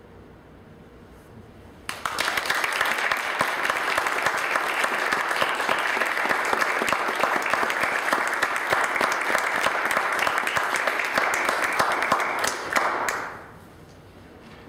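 Audience applauding: dense clapping that starts suddenly about two seconds in, holds steady, then dies away near the end.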